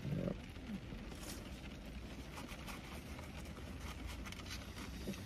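Quiet eating sounds: faint, irregular clicks of chewing and of a fork and food in paper containers, over a steady low rumble.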